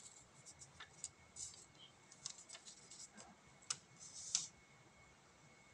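Faint, scattered light clicks and taps from hands handling a cardboard smartphone box, with a short rustle about four seconds in.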